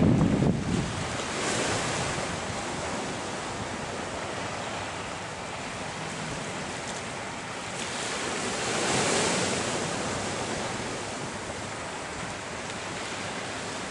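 Wind blowing across the microphone, with low gusts at the start, over a steady wash of small waves on open water; the wash swells up about nine seconds in.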